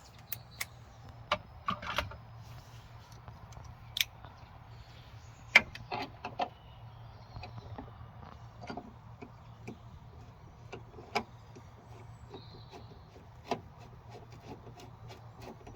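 Irregular metallic clicks and knocks from driving in the Allen-key screws that hold a power tailgate bracket, with a few louder knocks among them, over a low steady hum.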